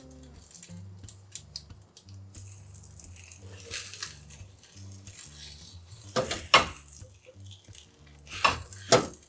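A spatula scraping and tapping against a square non-stick tamagoyaki pan as a rolled egg omelette is pushed and turned over. There are light clicks throughout, with a few louder knocks about two-thirds through and again near the end.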